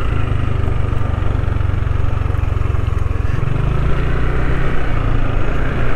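Motorcycle engine running steadily under way, with wind and road noise on the microphone; the engine note shifts about halfway through.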